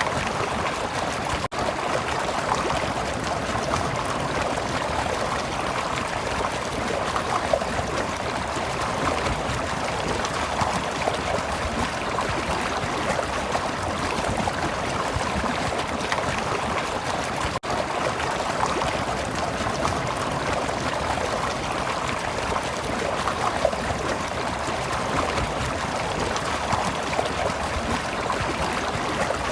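Stream water flowing and trickling steadily, an even rushing and gurgling, with two momentary dropouts in the sound.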